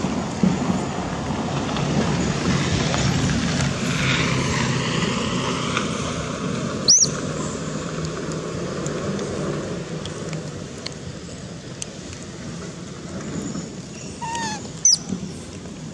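Engine noise passing by, swelling and fading, with sharp, high, short squeaks from baby macaques about seven seconds in and again near the end, the last one together with a short falling call.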